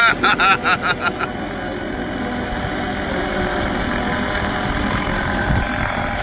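Scale RC Huey model helicopter spinning up its rotor and lifting into a hover, a steady whir that grows slightly louder toward the end. For the first second and a half a rhythmic pulsing tone, about five beats a second, sounds over it, then stops.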